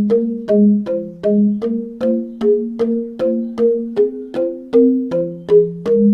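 Instrumental background music: keyboard notes struck in an even, repeating pattern, about three a second, each sounding a short chord.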